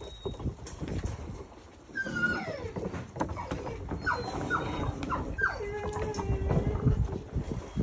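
Pointer puppies yipping and whining as they play: a falling whine about two seconds in, a quick run of short yips around four to five seconds, then one longer drawn-out whine.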